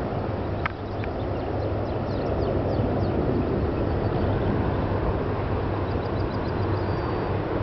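Steady low rumble of distant military aircraft in a parade flypast rehearsal, swelling slightly about two seconds in, with small birds chirping over it.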